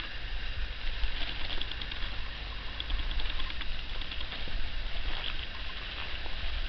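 Wind rumbling on the microphone over a steady outdoor hiss, with light irregular crackling and rustling of dry stubble as the camera is carried across the field.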